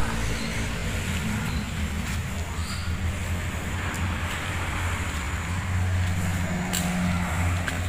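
Outdoor background noise: a steady low rumble, like traffic or wind, with no distinct events.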